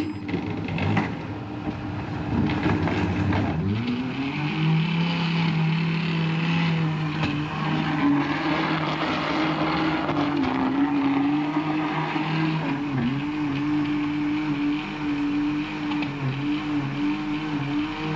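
Industrial blender with a soft-start motor blending food waste and hot water into a slurry. It starts with a rough churning; about four seconds in the motor's hum rises in pitch and settles into a steady whine, wavering slightly as the load shifts.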